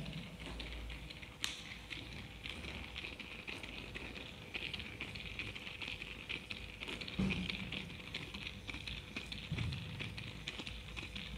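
Kinetic orange sculpture moving over wooden floorboards: a light, irregular crackling and ticking, with a soft thump about seven seconds in and another about two seconds later.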